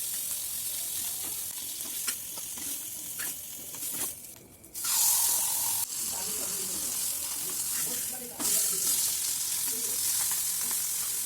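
Hot oil sizzling in a pan as food fries for a curry, with stirring. The sizzle drops away briefly about four seconds in, then comes back louder.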